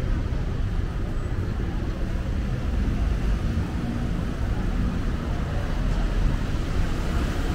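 Street traffic noise: a steady low rumble that stays level throughout, with no single vehicle standing out.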